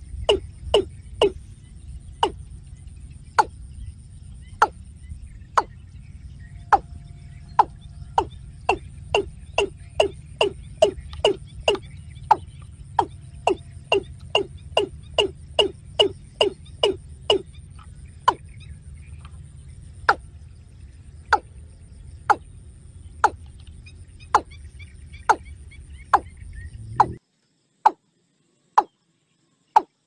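Watercock calling: a long series of short, hollow notes, each dropping quickly in pitch, about two a second and quicker in the middle, slowing near the end. Under them runs a low background rumble that cuts off suddenly near the end, leaving only the last few calls.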